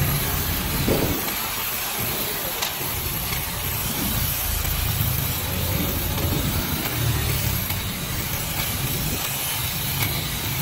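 Kutan cordless 2-in-1 mini shrub trimmer running, its short shear blade cutting through the leaves of a shrub, over a steady hiss and a low rumble that swells and fades.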